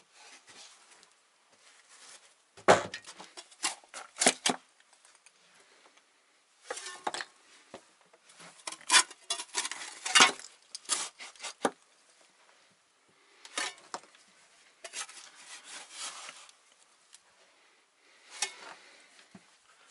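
Intermittent scraping and clinking of a metal hand tool working cement mortar, in irregular bursts of sharp clicks, busiest in the middle.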